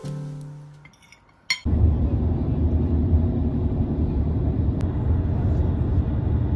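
Piano music fades out, a few light clinks follow, and then about a second and a half in a steady low rumble starts and keeps on.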